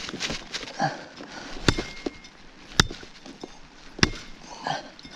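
A hatchery steelhead being bonked: three sharp blows about a second apart as a club strikes the fish's head to kill it. Two of the blows leave a brief ringing tone.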